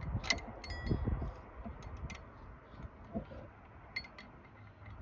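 Hand tools clinking on metal: a wrench and ratchet working the water pump pulley bolts on a small-block Chevy. Scattered ticks and clinks, with a short metallic ring early in the first second.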